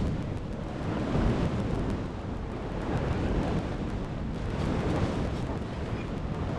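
Wind buffeting the microphone over the wash of ocean surf, a steady rumbling noise that swells and eases every few seconds.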